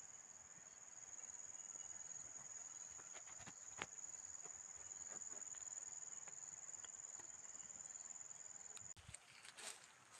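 Faint, steady, high-pitched drone of an insect, with a few soft clicks. The drone cuts off suddenly about nine seconds in, giving way to light rustling and taps.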